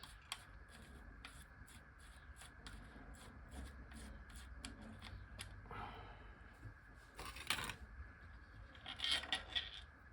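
Bicycle wheel hub being taken apart with hand tools: a run of light metallic clicks that slows over the first few seconds, then a few faint metal scrapes and clinks as the cone, axle and grease-packed loose ball bearings come out.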